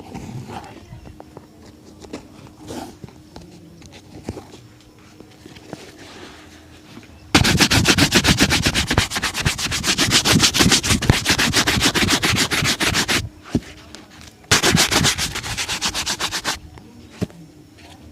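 Shoe being brushed hard and fast with a shoe-shine brush, in rapid back-and-forth strokes. A few soft handling clicks come first. The brushing starts about seven seconds in and runs for about six seconds, pauses briefly, then resumes for about two seconds.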